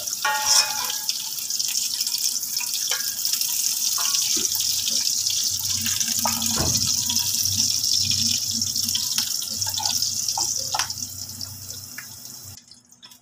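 Carrot strips, raisins and almonds sizzling in hot oil in a frying pan, a steady hiss, with a spatula now and then scraping and tapping the pan. The sizzle cuts off abruptly near the end.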